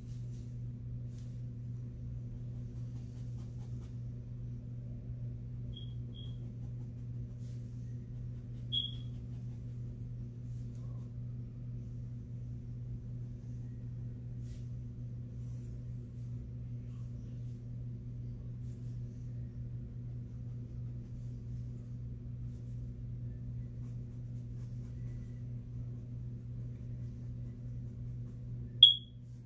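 Steady low hum with no speech, broken by a few short high-pitched pings: a quick double ping about six seconds in, another near nine seconds, and a louder one just before the end.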